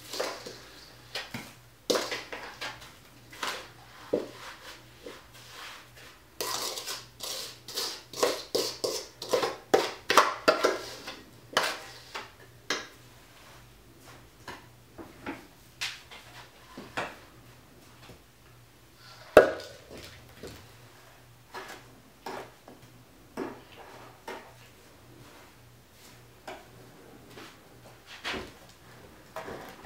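A utensil scraping and knocking against a stainless steel mixing bowl as a damp sugar-and-water mix is scooped out, with crunchy packing of the sugar into a wooden frame. There is a dense run of scraping about a third of the way in, and one sharp knock near the middle is the loudest sound.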